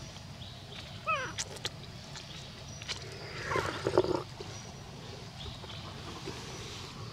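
Macaque calls: a short falling call about a second in, then a louder, harsher call around four seconds in, with a few faint clicks between.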